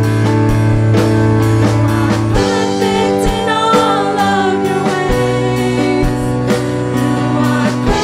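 Live worship band: women's voices singing a slow praise song over drum kit and keyboard, with a steady drum beat about twice a second and the chords changing about two and a half and five seconds in.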